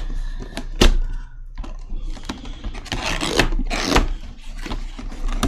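Toy packaging being handled and worked open: cardboard and a plastic clamshell scraping and rubbing, with a few sharp clicks and knocks.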